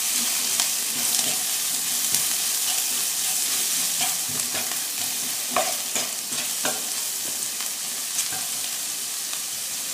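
Sliced onions and green peppers sizzling in oil in a frying pan while a wooden spoon stirs through them, with scattered light knocks and scrapes against the pan.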